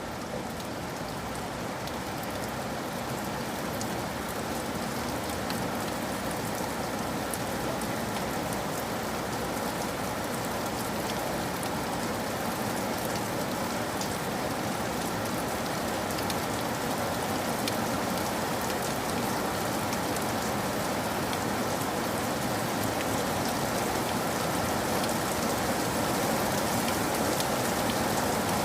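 Steady rain falling: a dense, even hiss peppered with small drop ticks, growing slowly louder.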